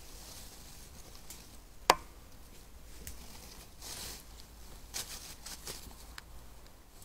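European badger moving about in the sett entrance, scratching and rustling in dry leaves and soil in short bursts, with one sharp click about two seconds in.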